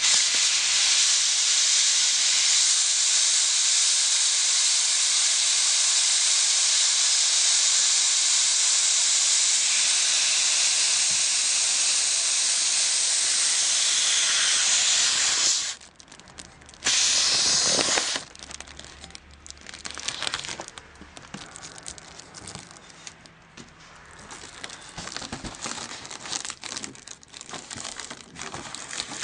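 Gas hissing steadily from an inflator nozzle into a foil balloon for about fifteen seconds, cutting off, then one more short hiss of about a second and a half as it is topped up. The rest is the crinkling of the inflated foil balloon being handled.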